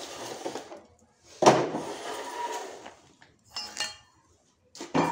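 Clatter and scraping as a tray is pulled out from under a block of plastic juice bottles on a steel table, bottles knocking together and plastic shrink film crinkling. It comes as a few separate sudden knocks and scrapes, the loudest about one and a half seconds in.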